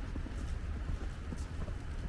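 Steady low rumble of wind on the microphone and distant city traffic, with scattered soft taps of wet snow or sleet.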